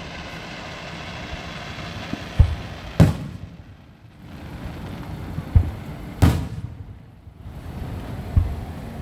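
Fireworks exploding: three times, a deep thump is followed about half a second later by a sharper, louder bang that trails off, over a steady background rumble.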